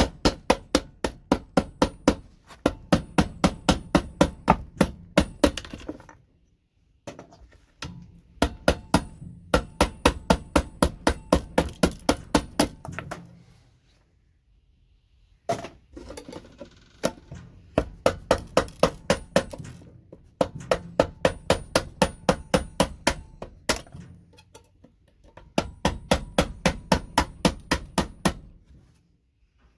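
Rapid, evenly spaced hammer strikes on scrap circuit boards, about three or four a second, in runs of several seconds with short pauses between: connector slots being knocked off the boards.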